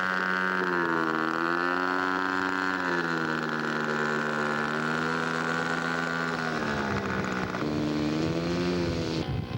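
A radio-controlled scale model airplane's engine running in flight: a steady buzzing drone whose pitch sags and rises again a few times as the plane passes and the throttle changes. The sound changes abruptly near the end.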